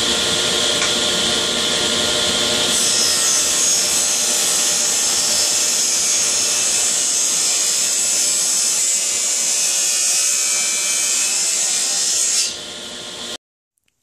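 Table saw ripping a bevel along a wooden board with the blade tilted, fed past a featherboard: a steady running whine, with a hissier cutting sound from about three seconds in while the blade is in the wood. Near the end the sound drops as the cut finishes, then cuts off suddenly.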